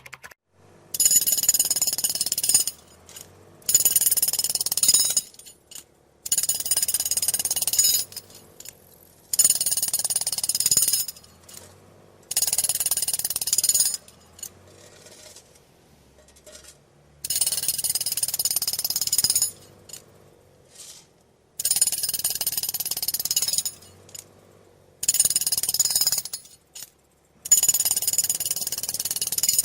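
Road drill (jackhammer) hammering in repeated bursts of one to two seconds, about nine of them, with short pauses between. It is breaking up road surface.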